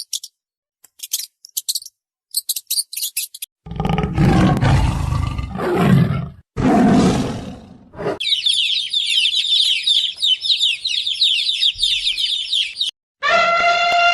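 A run of animal calls: rapid high-pitched chirps in short bursts, then two loud, rough roars, then a dense, continuous chorus of high chirping, and a pitched, falling call beginning near the end.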